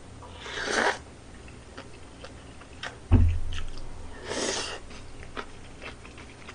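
A person slurping noodles with chopsticks from a bowl of budae-jjigae, two short slurps of about half a second each, one near the start and one past the middle, with small chewing clicks in between. A low thump about three seconds in is the loudest moment.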